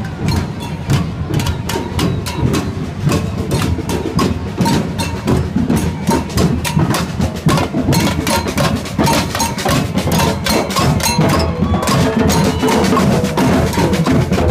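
A marching group of drummers playing together: many drums struck with sticks in a fast, steady rhythm, with sharp clicking hits over deep drum beats.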